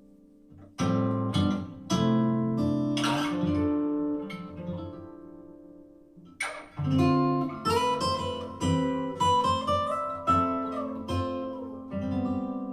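Acoustic guitar music played back through an Anker Soundcore Motion+ portable Bluetooth speaker. Strummed chords come in about a second in, die away near the middle, then a new run of chords and a melody line comes in.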